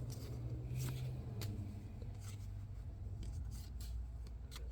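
Baseball trading cards being handled and flipped through by hand: faint soft rubbing with a few scattered light clicks, over a low steady hum.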